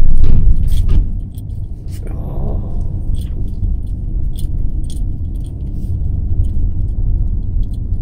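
Car interior while driving: a steady low road and engine rumble, with scattered light rattling clicks.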